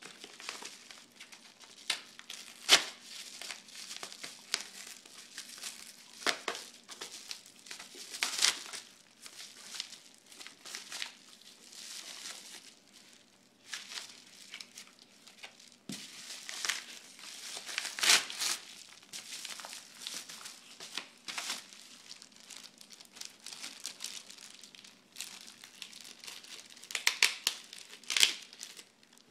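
A yellow padded mailing envelope being crumpled and torn open by hand: irregular paper crinkling with sharper rips now and then. Near the end, a plastic bag crinkles as it is handled.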